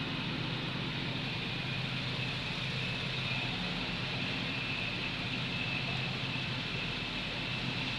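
Engine running steadily, with a steady high whine over the engine note from its worn, stretched chain, which had been rubbing where its support broke.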